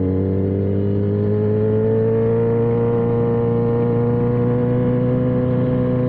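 Motorcycle engine running steadily under way, its pitch rising slowly and smoothly.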